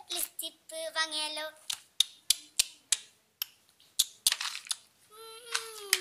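A young girl's high voice in a short phrase, then a run of about eight sharp clicks and knocks over a couple of seconds, then a breathy sound and her voice again near the end.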